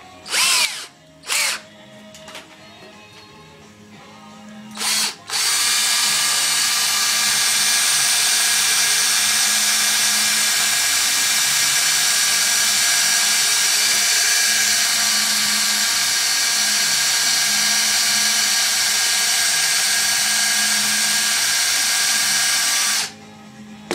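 Power drill pre-drilling a hole for a rivet: a few short trigger blips in the first five seconds, then the drill runs steadily with a whining motor for about eighteen seconds and stops abruptly near the end. Background music plays faintly underneath.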